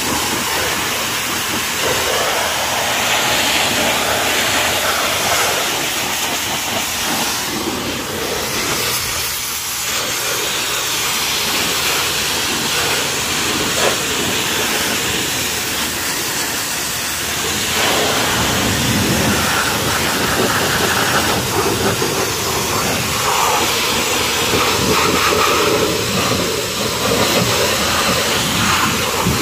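High-pressure washer jet blasting caked mud off a tractor's rear wheel rim and tyre: a loud, steady hiss of spraying water. Its tone shifts as the jet moves over the surfaces, and it grows fuller from about eighteen seconds in.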